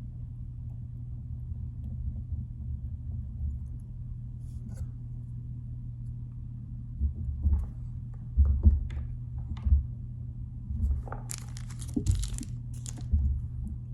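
Hands working at a fly-tying vise while the thread is started on the hook: a few low knocks and light clicks, and a brief scraping rustle about eleven seconds in, over a steady low hum.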